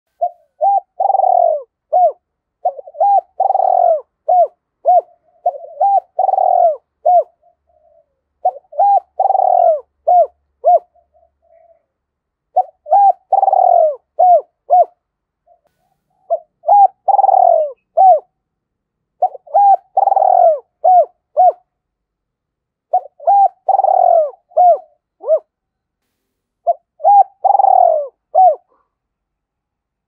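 Spotted dove giving its calling coo: about eight phrases, each a run of short hoots with a longer falling note, one every three to four seconds, stopping shortly before the end.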